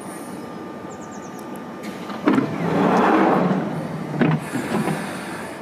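A London Underground 1996 Stock train's sliding passenger doors opening. A sharp clunk about two seconds in is followed by a rush of door movement that swells and fades over about two seconds, and then a couple of knocks as the doors reach their stops.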